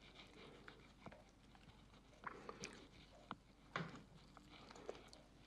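Quiet soft squishes and small clicks of a gloved hand pressing grated potato down into a cake ring, with the clicks bunched from about two seconds in.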